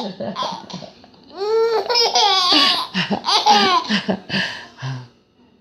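Baby laughing at a sneeze in repeated high-pitched bursts. The laughter dips about a second in, then comes back in a longer, louder run.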